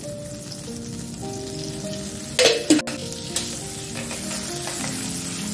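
Butter and a little oil sizzling in a cooking pan, with a couple of sharp knocks about two and a half seconds in. A soft background music melody plays under it.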